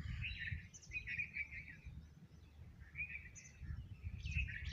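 Small birds chirping in short, quick twittering runs, several times, over a steady low background rumble.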